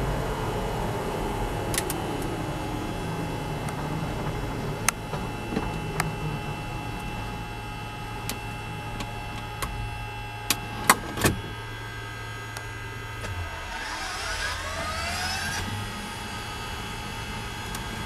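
Helicopter turbine engines winding down on the ground, the whine falling in pitch, with several sharp switch clicks from the overhead panel, three close together about two-thirds of the way in. A brief cluster of shifting tones follows near the end.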